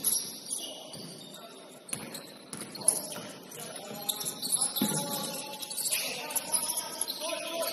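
Basketball game sounds in a gym: a ball bouncing on the court, with sharp thuds and players' voices calling out.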